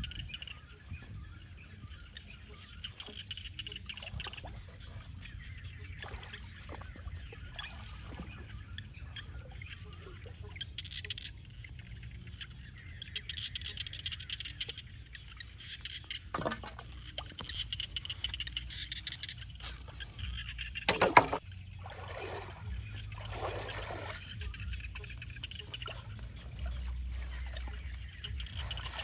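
Rural outdoor ambience with steady high-pitched chirping of wildlife, a few clicks and one sharp loud knock about two-thirds of the way in, then water splashing in a shallow stream as a mesh fish trap is handled.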